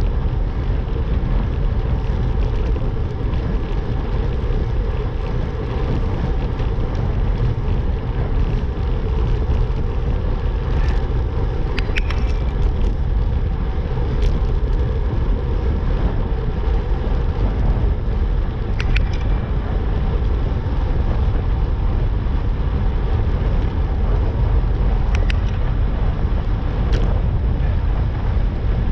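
Wind buffeting the camera microphone while riding down a road: a steady low rumble with a few faint ticks scattered through it.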